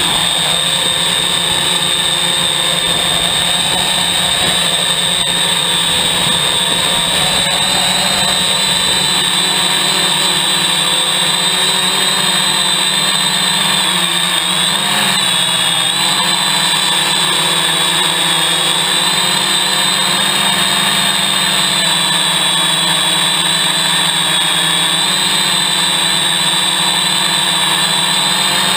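Hexacopter's six electric motors and propellers running with a steady high whine over a lower hum, heard close up from a camera carried on the craft. The pitch wavers briefly about halfway through.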